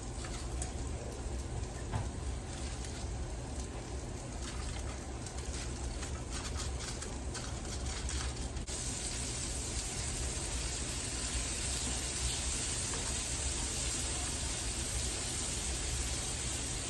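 Sausage sizzling in a frying pan: a steady hiss with scattered crackles, the hiss turning brighter and denser about halfway through.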